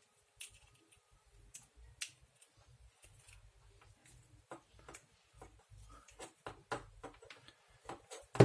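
Scattered light clicks and taps of small objects and tools being handled on a workbench, coming closer together in the second half, with a louder knock at the very end.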